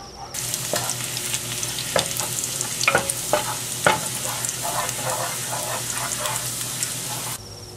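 Minced garlic sizzling in foaming melted butter in a frying pan, stirred with a wooden spatula that knocks and scrapes against the pan a few times. The sizzle starts suddenly just after the opening and cuts off suddenly near the end.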